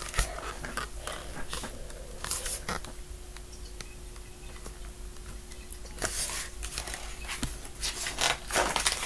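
Paper rustling and handling noise from a picture book being moved about and its pages turned, in a few short rustles.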